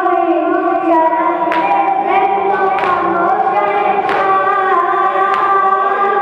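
A boy's voice reciting a noha, the Shia mourning lament, into a microphone without instruments, with other voices singing along in chorus. Sharp slaps about every second and a quarter keep the beat, the hand-struck matam that marks a noha's rhythm.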